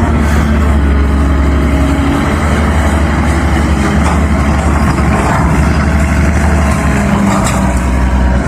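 CAT 320 excavator's diesel engine running steadily while the machine works, a constant low drone.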